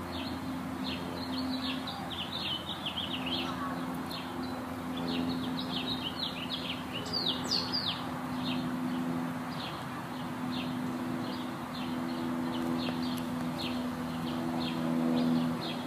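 Small songbirds chirping: many quick, high, falling chirps, thickest in the first half, over a steady low hum.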